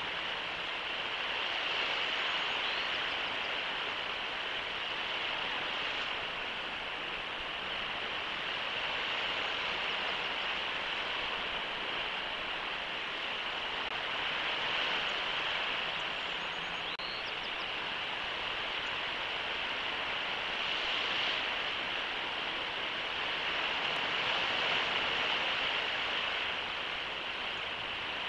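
Steady outdoor rushing noise that swells and eases every few seconds, with a faint high chirp twice.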